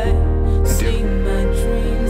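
Music: a song track with long held notes over a deep, steady bass.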